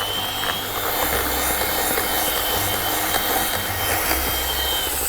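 Electric mixer beating butter, icing sugar and cornflour in a bowl: the motor runs with a steady high whine over the scraping of the beaters, winding down at the very end.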